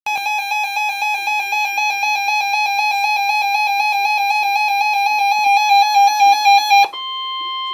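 Weather alert radio sounding an emergency alarm: a shrill electronic tone pulses rapidly, about eight times a second. About seven seconds in it switches to a steady single tone, the warning alarm tone that comes before a severe thunderstorm warning.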